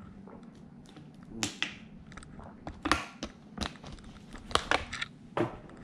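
About a dozen irregular, sharp clicks and knocks over a low steady background hum.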